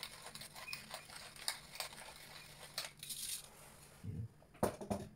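Hand pepper mill grinding black pepper: a run of quick gritty clicks as it is twisted, then a soft knock and one sharp clack about four and a half seconds in.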